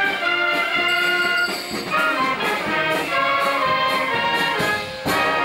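A street band of brass and clarinets playing a slow tune in long held notes.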